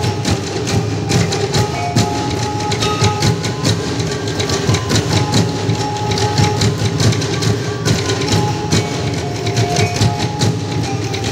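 Bukidnon folk-dance music with percussion: fast, even strikes over a steady low beat, with short held notes in between.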